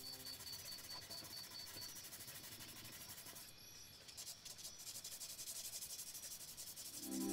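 Faint scratching and rubbing of a black charcoal pencil on textured watercolour paper as dark shading is worked in. Background music comes in loudly right at the end.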